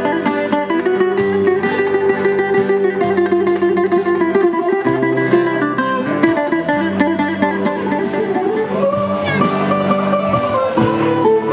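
Greek music played live on two plucked string instruments, a bouzouki and a guitar, picking a lively tune together without a break.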